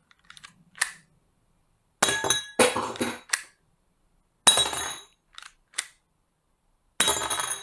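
A series of sharp, irregularly spaced clacks and clinks, some in quick pairs, from handling a toy Glock 26 gel-ball pistol.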